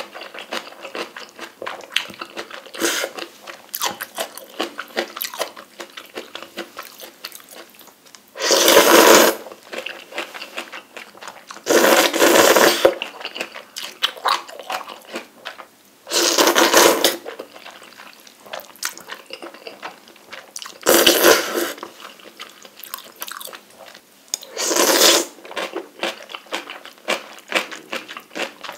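A person eating spicy Buldak noodle soup close to the microphone: about five loud slurps of noodles, each lasting around a second, with chewing and wet mouth sounds between them.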